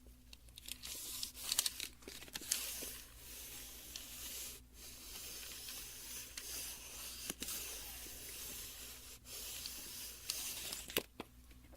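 Retractable tape measure being handled, its blade worked with a long scratchy hiss, a few sharp clicks and two short breaks in the middle.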